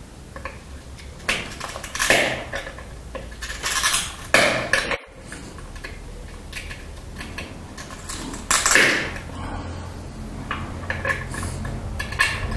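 Glass being pressure-flaked with a hand-held tool over a small wooden anvil block: irregular sharp clicks and light scraping as small flakes snap off the edge, the loudest about four seconds in and again near nine seconds.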